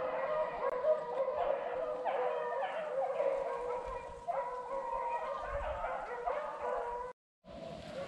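A pack of beagles baying and howling on a cottontail rabbit's trail, several voices overlapping in a continuous chorus that breaks off briefly about seven seconds in.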